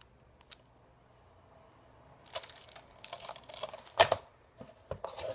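Pages of a paperback book being flipped and riffled: a run of paper rustles and flaps starting about two seconds in, loudest about four seconds in.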